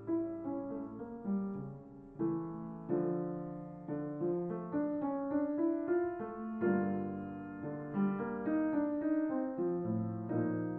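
Background piano music: a piano playing a melody over chords, each note struck and then fading.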